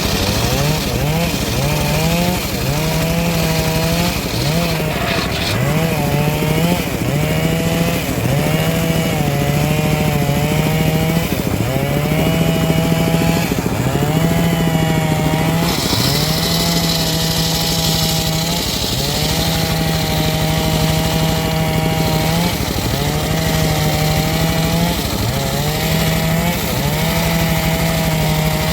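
Homemade circular sawmill ripping old black teak. The machine's note sags each time the blade takes the cut and then climbs back, over and over, at first every second and a half or so and later in longer steady stretches.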